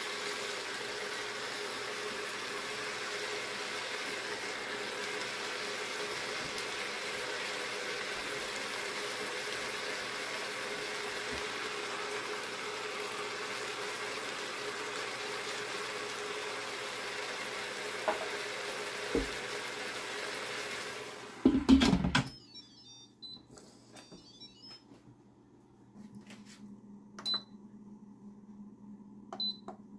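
Instant Pot on sauté with meatballs and onions cooking: a steady sizzling hiss with a low hum. About two-thirds of the way through it cuts off suddenly at a loud thump, leaving quiet with a few clicks and short beeps.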